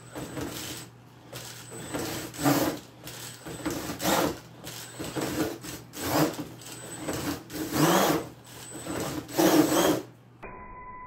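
Mini RC monster truck's electric motor whining in repeated bursts of throttle, about five, each with a short rising sweep, as the truck drives up and over a cardboard box ramp, its tires scrabbling on the cardboard and tile. The driving stops shortly before the end.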